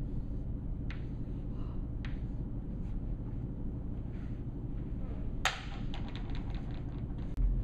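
Chalk clicking and tapping on a blackboard as a word is written. A sharp, ringing click about five and a half seconds in is followed by a quick rattle of small ticks, all over a steady low room hum.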